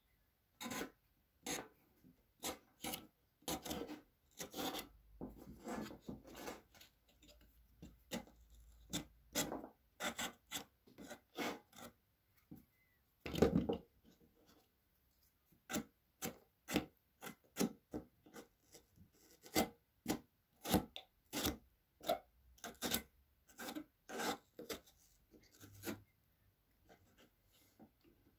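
Raw potato scraped in short, uneven back-and-forth strokes across a homemade slicer fitted with an old snap-off utility-knife blade, each stroke a brief rasp as a slice is cut; one stroke about halfway through is louder than the rest.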